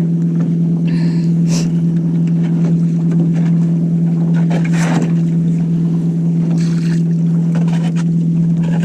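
Small sailboat under way: a steady, loud low hum runs throughout, with a few brief rushes of noise, about a second and a half, five and seven seconds in, typical of water and wind against the boat.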